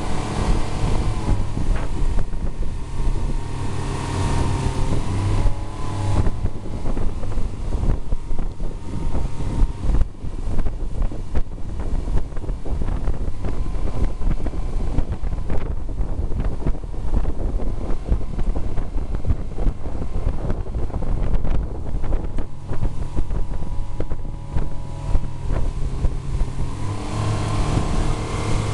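Outboard motor of a speedboat running at speed, with heavy wind buffeting on the microphone and rushing water from the wake. The engine's steady tone stands out in the first few seconds and again near the end; in between the wind rumble covers it.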